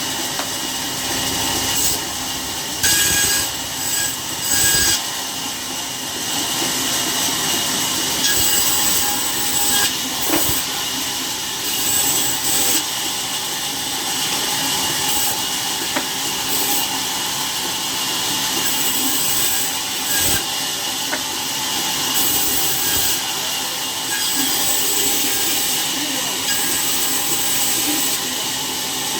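Sawmill saw cutting through wood: a steady, loud machine noise with a high hiss, without a clear stroke rhythm.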